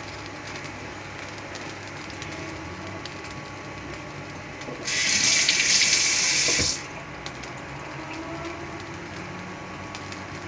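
Kitchen tap running in a steady gush for about two seconds, starting about five seconds in, then stopping.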